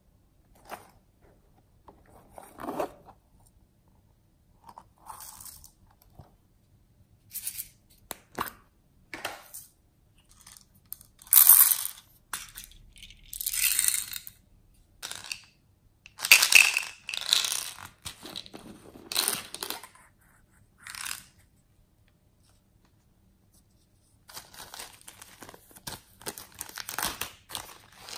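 Plastic packaging being handled and opened by hand: irregular short bursts of rustling, tearing and clicking, with a longer stretch of plastic-bag crinkling near the end.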